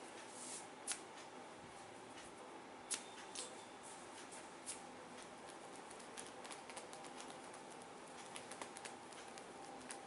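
Hands massaging a man's head: fingers rubbing and rustling through his hair, faint, with sharp taps about a second in, about three seconds in and near five seconds, then a run of lighter, quicker taps in the second half.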